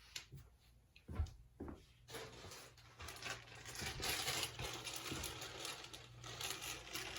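Paper and craft materials being handled: a few light taps and knocks, then from about two seconds in a soft scratchy rubbing and rustling that goes on for several seconds.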